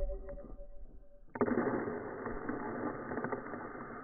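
A fading metallic ring just after a rifle hit. About a second and a half in, a sudden rush of fine pattering sets in and slowly dies away: sand and dirt thrown up by the bullet's impact raining back down.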